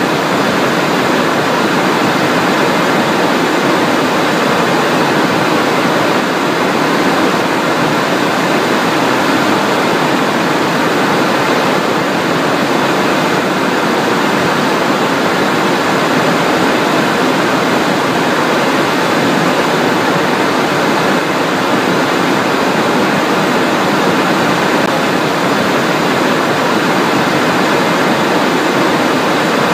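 Steady, loud cockpit noise of a Cessna Citation Encore on final approach: the rush of air over the airframe together with the hum of its twin turbofan engines, with a faint high whine.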